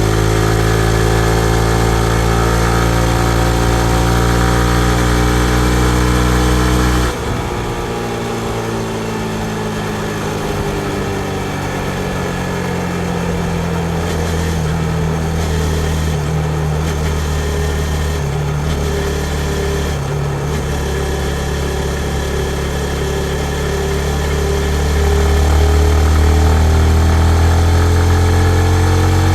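2019 Yamaha MT-15's 155 cc single-cylinder engine running under steady throttle, then the throttle closing suddenly about seven seconds in and the engine note falling as the bike slows. Near the end the engine pulls again, louder and rising in pitch.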